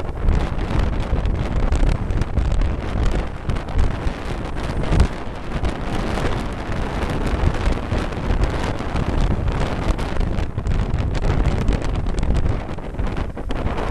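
Wind buffeting the microphone of a camera carried on a moving motorcycle taxi, an uneven low rumble, with the motorcycle and road noise underneath.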